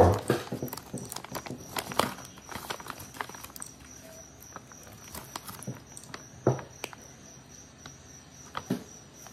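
Crinkly chip bag being handled and potato chips being eaten: a loud bump at the start, a quick run of crackles and clicks over the next few seconds, then scattered clicks and two sharper crunches later on.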